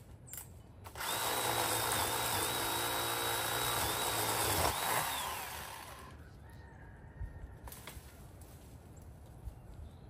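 Electric power tool cutting brush. Its motor starts about a second in and runs with a steady high whine for about three and a half seconds, then cuts off and winds down.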